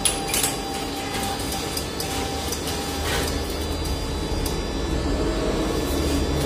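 Bank ATM printing and feeding out a receipt slip about three seconds in, over a steady machine hum, with a few clicks near the start.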